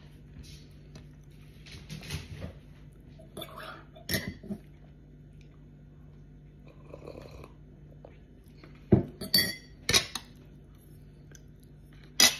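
Tableware clinking and knocking: a ceramic plate, spoon and mug touched and set down. Soft clatter early on, then a few sharp clinks about three-quarters through and one more near the end.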